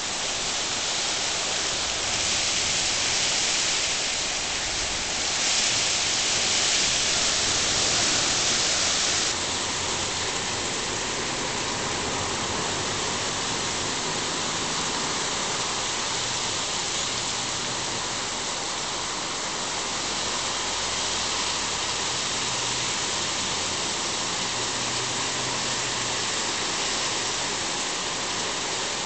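Torrential rain pouring down, with rushing floodwater: a steady, dense hiss. It is louder and brighter from about two seconds in until it drops suddenly about nine seconds in.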